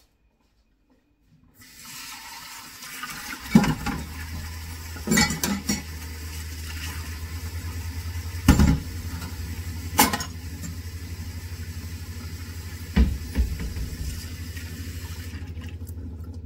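Kitchen tap running into a stainless steel sink while dishes are washed, with glasses and crockery clinking and knocking against the sink about five times. The water comes on about a second and a half in and stops shortly before the end, over a low steady hum.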